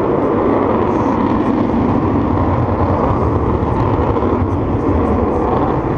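Avro Vulcan XH558's four Olympus turbojets making a loud, steady jet noise at high power.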